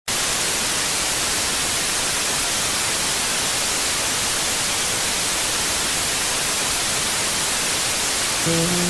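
Steady, loud static hiss, like white noise, with no rhythm. A few musical notes come in near the end.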